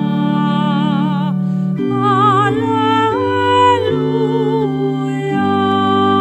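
A solo voice with a wide vibrato sings the long, held notes of a church Alleluia over sustained keyboard chords that change every second or so.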